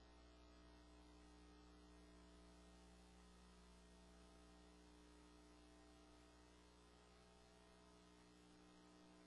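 Near silence: a faint, steady electrical hum from the sound system.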